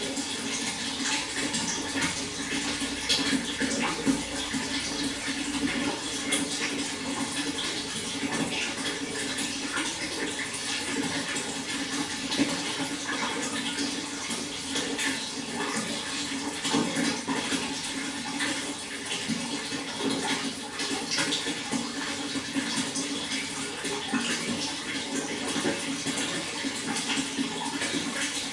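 Water flowing steadily: a constant rush with many small splashes.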